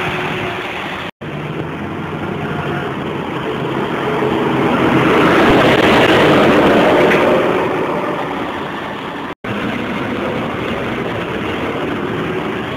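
Ikarus 280 articulated city buses' diesel engines running in street traffic, growing louder to a peak midway as one bus drives close past, then easing off. The sound breaks off abruptly twice, at cuts between clips.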